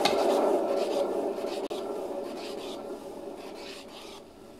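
Wooden IKEA Lazy Susan turntable given a hand spin, its bearing running with a rumbling, rubbing whirr that starts suddenly and fades as it slows.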